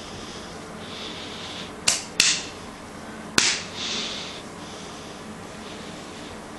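A hand smacking a shiny latex catsuit: two quick sharp smacks about two seconds in and a third about a second later, with soft rubbing of the hand over the rubber between them.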